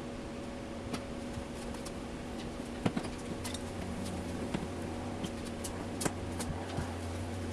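Scattered light clicks and taps of car body parts being handled and fitted at the front of the car, over a steady low hum.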